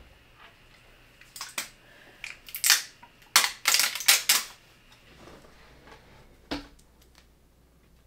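Sharp clicks and knocks of PC parts being handled inside a desktop computer case: a quick run of them from about one and a half to four and a half seconds in, then a single knock a couple of seconds later.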